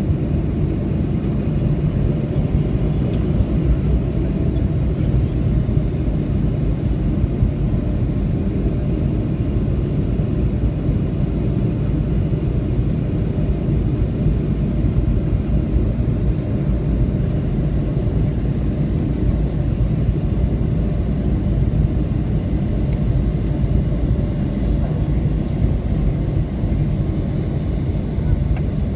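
Steady low rumble inside the cabin of a Boeing 757-200 taxiing after landing: the engines at taxi idle and the wheels rolling along the taxiway.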